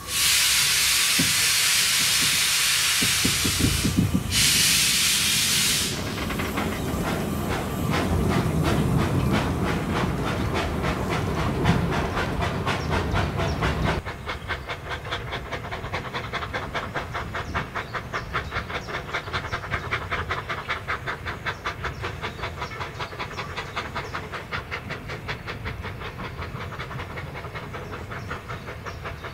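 Narrow-gauge steam tank locomotive hissing loudly from its cylinder drain cocks for about six seconds, with a short break partway, then quieter. A narrow-gauge steam train follows, running with a steady, rapid rhythm of exhaust beats and wheels on rail joints.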